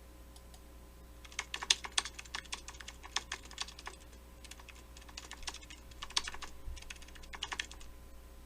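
Keyboard typing sound effect: irregular, quick computer-keyboard key clicks, starting about a second in.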